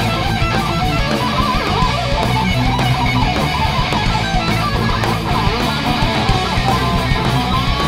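Heavy metal band playing live: a distorted electric guitar lead with bending, wavering notes over a driving rhythm of guitar, bass and drums.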